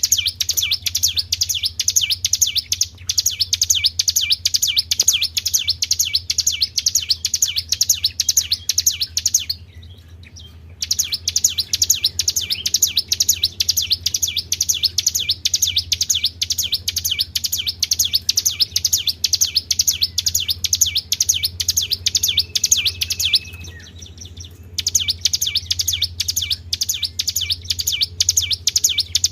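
Recorded song of a tribel bird: a fast, unbroken run of high chirps, several a second, that stops briefly twice, played as a lure track to set caged birds singing. A steady low hum runs underneath.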